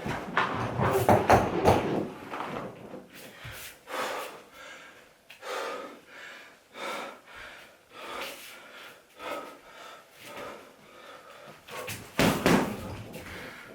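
Punches landing on a home heavy bag in irregular combinations. There is a rapid flurry of hits in the first two seconds, single and double shots through the middle, and another hard flurry about twelve seconds in.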